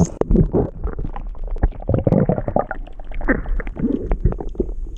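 Water gurgling and sloshing, with irregular knocks and low rumbles.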